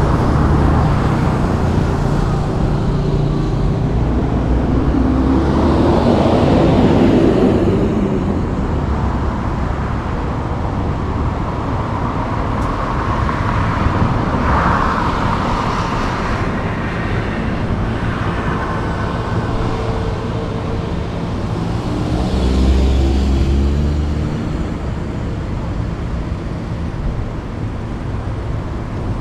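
Road traffic: cars and other motor vehicles passing with engines running, one passing loudest about a quarter of the way in and another with a deep rumble about three-quarters of the way through.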